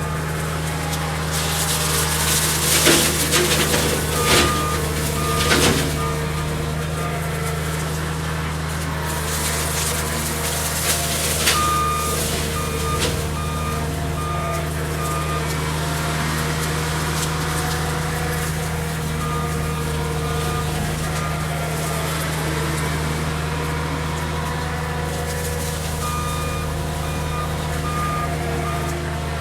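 Cat 279D compact track loader's diesel engine running steadily, with its backup alarm beeping in several runs as it reverses. A few sharp cracks come about two to six seconds in.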